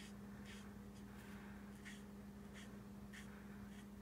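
Faint scratching of a Stampin' Blends alcohol marker stroking back and forth on cardstock while colour is blended in, about one short stroke every half second, over a low steady hum.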